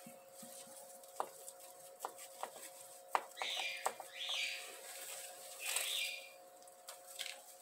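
Crisp snapping and rustling of curly lettuce leaves as a head of lettuce is cut at the stem and pulled from a soil-filled basin: several sharp clicks, with short rustles near the middle.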